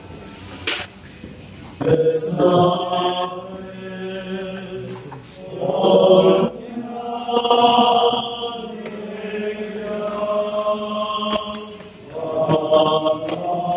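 Armenian liturgical chant at Mass, voices singing long held notes in several phrases, beginning about two seconds in.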